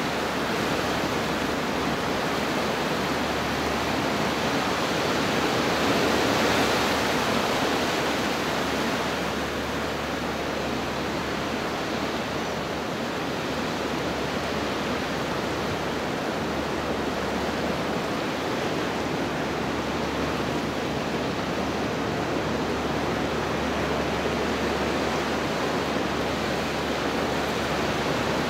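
Ocean surf surging and churning through a rocky channel, a steady rushing wash that swells a little louder about six seconds in.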